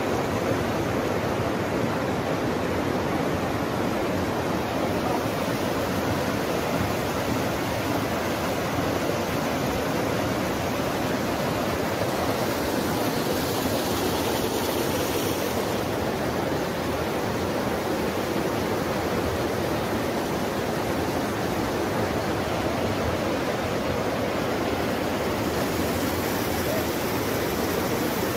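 Muddy floodwater of a swollen river rushing past, a steady, even noise that does not let up.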